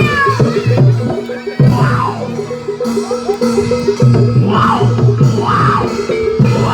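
Live Javanese barongan accompaniment music: drums beating under a fast, evenly repeating pitched pulse, with a wavering melody bending up and down above.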